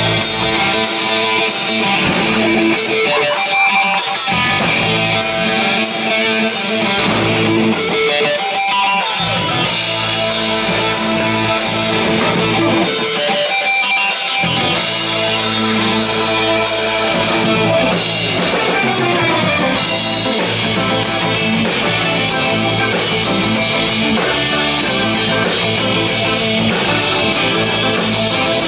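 Live rock band playing an instrumental passage: electric guitar riff over drum kit and bass, with cymbal hits keeping a steady beat about twice a second through the first nine seconds or so.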